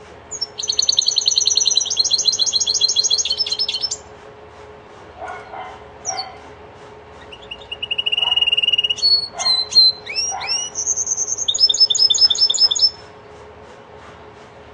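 Linnet × canary hybrid (mule) singing goldfinch-style song: a fast, high trill lasting about three and a half seconds, then a few short notes, then a string of varied whistles, slurred notes and rapid rattling trills that stops about thirteen seconds in.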